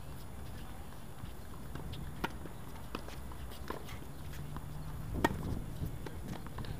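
Tennis balls being hit by rackets and bouncing on a hard court, a series of sharp pops a second or so apart, the loudest about five seconds in, over a steady low rumble.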